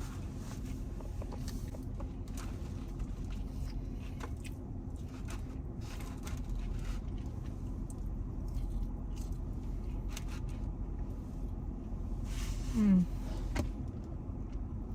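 Steady low rumble inside a car with the engine running, overlaid with small clicks and rustles of eating from a fast-food bag. Near the end a brief low hum from the eater drops in pitch.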